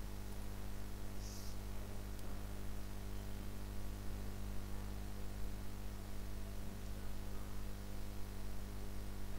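Steady low electrical hum with an even hiss underneath: background noise of the recording setup, with no other sound standing out.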